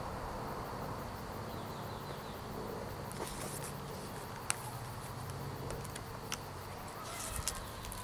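Quiet outdoor background with a few faint ticks, and a soft rustle of a hardcover picture book's pages being handled and turned near the end.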